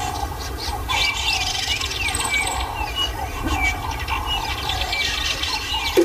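Chorus of wild animal calls: many small chirps and short rising and falling whistled notes, repeating every half second or so, over a steady low rumble.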